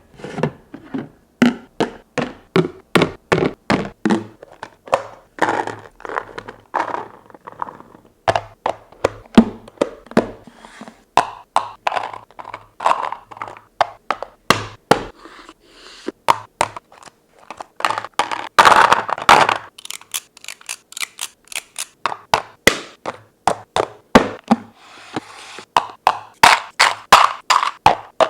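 Plastic food storage containers and their lids being handled, set down and snapped shut: a steady run of sharp knocks and clatters, with a few longer rustling stretches.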